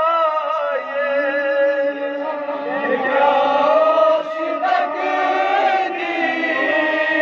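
Male reciter singing a Kashmiri nauha (Muharram lament) through a microphone and loudspeaker. About three seconds in, a group of men's voices takes up the chanted refrain.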